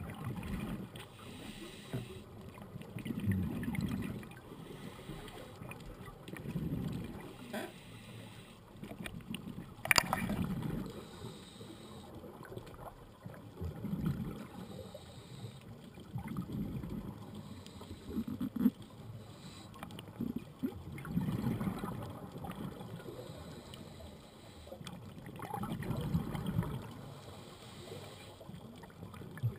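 Scuba breathing heard underwater through a regulator: exhaled bubbles burble in low swells about every three to four seconds, with a fainter hiss of inhaling between. A few sharp clicks cut in, the loudest about ten seconds in.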